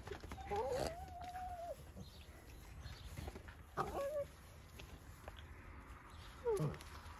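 A Cavalier King Charles spaniel whining in short high calls: one drawn-out whine that rises and then holds, starting about half a second in, a shorter one near the middle, and one that falls steeply in pitch near the end.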